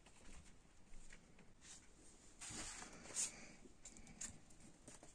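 Faint handling of a vinyl LP's cardboard gatefold jacket as it is opened: light paper-and-card rustles and ticks, a longer rustle about two and a half seconds in, then a sharp tap of the card just after.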